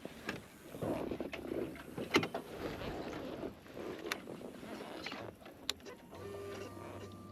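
Handling noises, rustling and several sharp clicks, as the rider gets onto the Suzuki GSX-R600. About six seconds in a steady electric hum sets in, typical of the fuel pump priming when the ignition is switched on.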